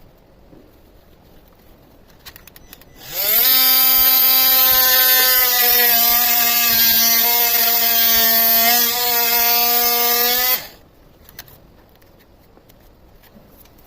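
Electric power tool cutting through a ram's horn: it starts about three seconds in with a rising whine, runs as a loud steady whine for about seven seconds, and cuts off suddenly.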